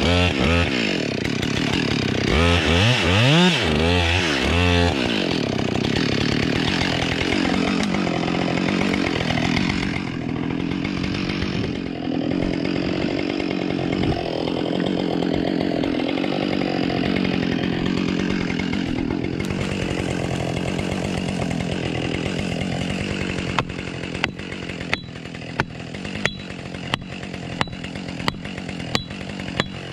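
Husqvarna 572 XP two-stroke chainsaw cutting into a black walnut trunk, its engine speed rising and falling for the first few seconds, then running steadily. For the last several seconds a run of evenly spaced sharp knocks, about one every half second or so, sounds over the running saw.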